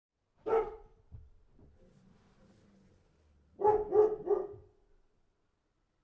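A dog barking: one bark, then a few seconds later three barks in quick succession.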